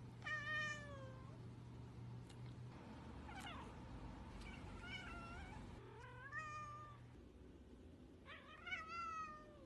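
Domestic tabby cats meowing: about five separate meows, some falling and some rising in pitch, the first and the one near the end the loudest.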